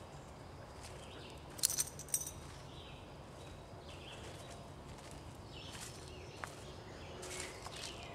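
Quiet woodland ambience broken by a few sharp crackles and rustles on the forest floor, the loudest cluster about two seconds in, with faint chirps in the background.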